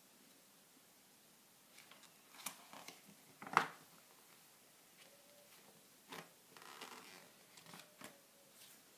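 Magazine pages crinkling and rustling as a child handles and turns them, in short bouts starting about two seconds in, the loudest about three and a half seconds in.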